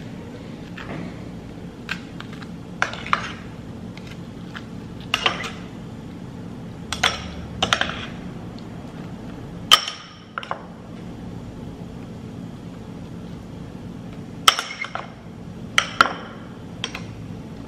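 Metal table knife clinking and scraping against a ceramic bowl and scraping across crisp toast while spreading mashed avocado, in a dozen or so short, sharp strokes. A steady low hum runs underneath.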